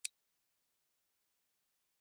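A single computer mouse click, one brief click right at the start.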